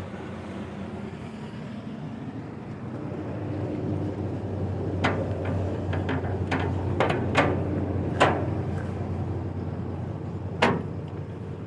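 Hinged steel access port on a forestry tractor's side panel being handled and shut: a run of sharp metallic clanks and latch clicks in the middle, and one more near the end, over a steady low hum.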